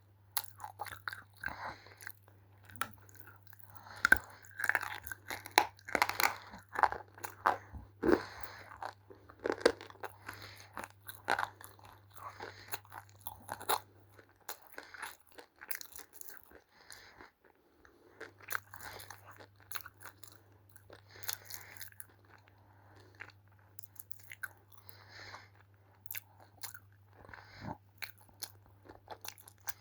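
Close-up biting and chewing of roasted Multani mitti (Fuller's earth clay) chunks: irregular crisp crunches, louder and more frequent in the first half, quieter chewing later.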